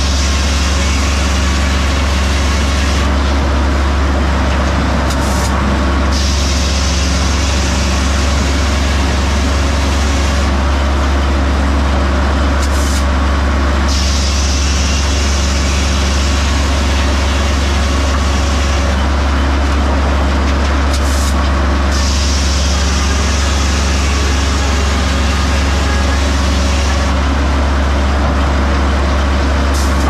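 Circular sawmill running: a steady low drone from the head saw and its drive. A higher hissing cut comes and goes every few seconds as the carriage feeds a cross-tie cant through the blade.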